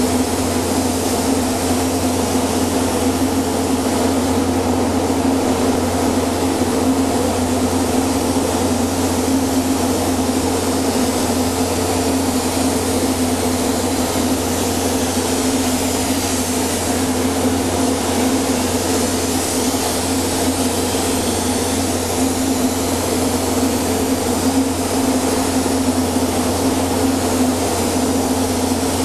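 Gravity-feed air spray gun hissing steadily as paint is sprayed onto a boat hull, over a steady mechanical hum.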